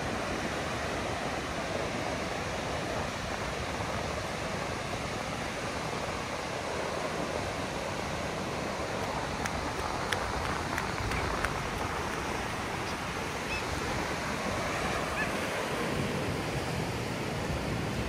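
Steady wash of ocean surf with wind buffeting the microphone.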